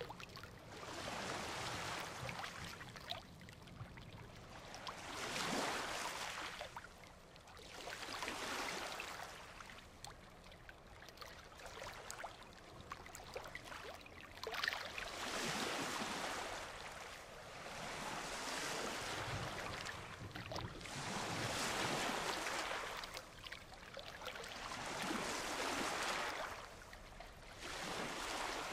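Ocean surf breaking on a beach and washing up the sand, the rush of water swelling and fading every few seconds. There is one sharper crash about halfway through.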